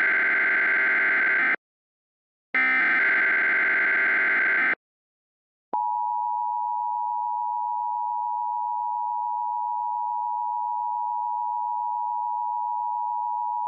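Emergency Alert System tones: two bursts of SAME digital header data, each about two seconds long with a pause between, then, about six seconds in, the steady two-tone EAS attention signal, which holds for about eight seconds. The header and attention signal come before a spoken blizzard warning.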